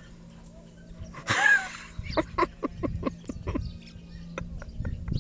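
A small child imitating a hen: a short squeal, then a quick run of clucks at about four or five a second.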